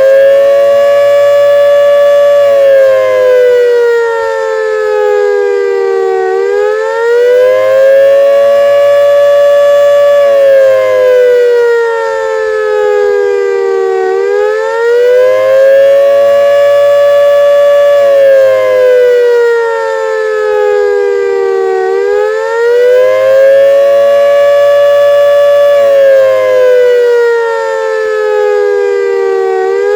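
CLM 5261 siren sounding a wail on test. Its pitch rises quickly, holds high for several seconds, then falls slowly, repeating about every eight seconds.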